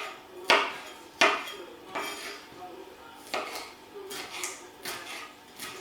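Kitchen knife chopping bell pepper into small pieces on a chopping board: about seven sharp knocks, the first three louder and the later ones softer.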